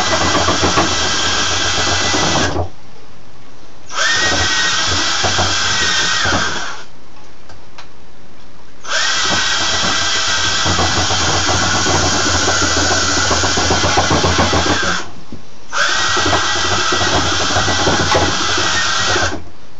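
Cordless drill spinning the Carboy Cleaner's shaft and pads inside a glass carboy that holds a little water. It runs in four bursts of a few seconds each, with short pauses between them. The motor's whine rises as each burst starts and drops as it stops.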